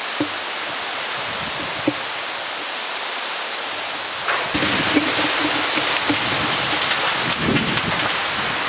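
Steady hiss of rain and wind as a thunderstorm moves in, getting louder and fuller about four seconds in, with a few short light taps.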